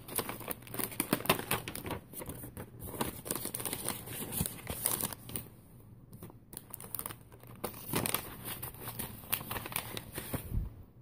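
Printed paper wrapping and plastic snack bags crinkling as the wrapping is folded back and the snacks are handled, with a short lull about six seconds in.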